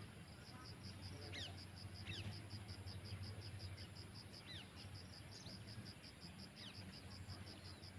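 Outdoor rural background: an insect chirping in a fast, even pulse of about five chirps a second, with birds giving short whistled calls every second or so, over a faint low hum.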